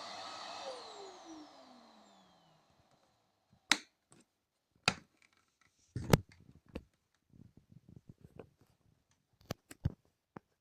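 Rowenta RO3950 bagged vacuum cleaner switched off, its motor winding down: the running noise fades over about two seconds while its hum falls steadily in pitch. Then come a series of sharp separate clicks and knocks, the loudest about four, five and six seconds in and two more near the end.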